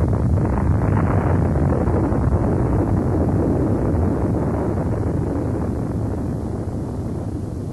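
A deep, steady rumbling noise effect that fades slowly over the last few seconds.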